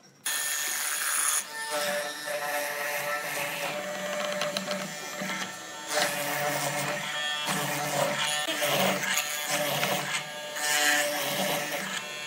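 Hollow-chisel mortiser switched on just after the start, its electric motor running with a steady buzz while the square chisel and auger bit bore into the wood to cut a mortise, the sound rising and dipping as the chisel is plunged and lifted.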